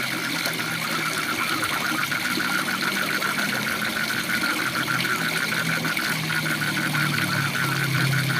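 Waterfall rushing steadily, with a frog calling in a fast run of short pulses, about six a second, that gets stronger a couple of seconds in. A low steady hum grows louder toward the end.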